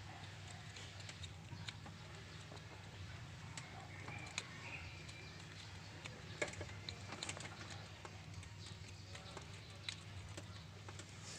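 Faint, scattered clicks and taps of hands and tools working on engine-bay wiring, with sharper clicks about six and a half and ten seconds in, over a steady low hum.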